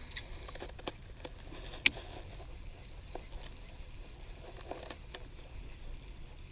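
Irregular small clicks and ticks, a few a second, with one sharper click about two seconds in, over a steady low rumble.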